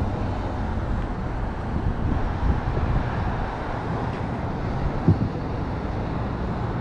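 Steady road-traffic noise: the engine and tyre sound of cars and a box truck driving through an intersection.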